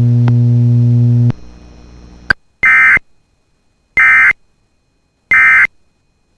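Emergency Alert System end-of-message signal: three short, identical warbling digital data bursts about a second and a half apart, marking the end of the alert. Before them a steady low hum from the broadcast audio cuts off about a second in, followed by a click.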